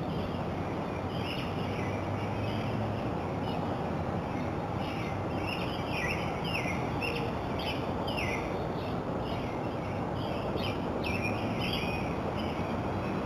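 Birds singing and calling outdoors, a run of short falling chirps that grows busier about halfway through, over a steady hiss.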